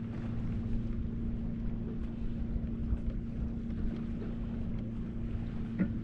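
A steady low motor hum, holding one pitch, over a low rumble, with a faint click just before the end.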